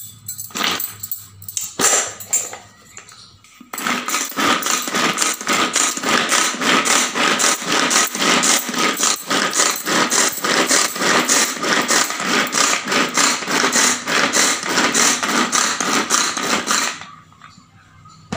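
Pull-string manual food chopper being worked: rapid pulls of the cord spin the blades in the plastic bowl, chopping tomato, green chilli and garlic with a fast, continuous rattling whirr. A few separate knocks come first, then about thirteen seconds of steady rattling that stops suddenly near the end.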